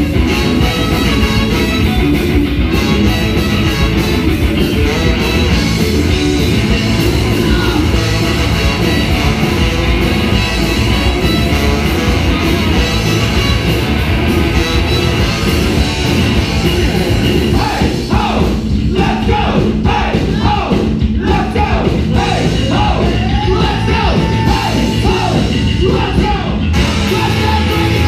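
Live ska-punk band playing loudly: trumpet and trombone over electric guitar, bass guitar and drums. About two-thirds of the way through, a new melodic line with sliding, bending pitches comes in over the band.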